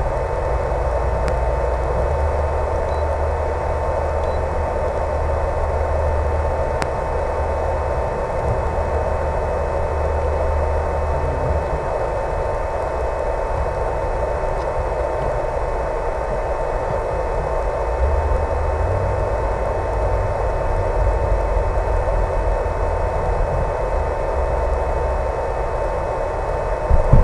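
HobbyZone Super Cub RC plane's electric motor and propeller running at a steady pitch, under a hiss of rushing air, with low rumbles coming and going.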